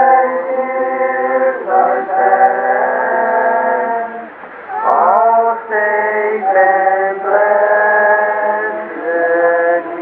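Congregation singing a hymn unaccompanied in several-part harmony, in long held notes, with a short break between lines about four and a half seconds in.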